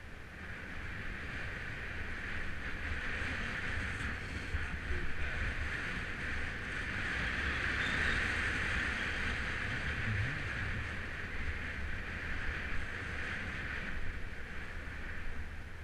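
Rushing noise of wind buffeting the camera microphone and road-bike tyres rolling on asphalt during a fast descent, building to a peak about halfway through, then easing a little.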